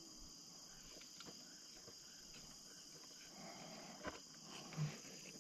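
Faint, steady night chorus of crickets and other insects, with a few soft clicks and a small knock from handling a fish and line in the boat.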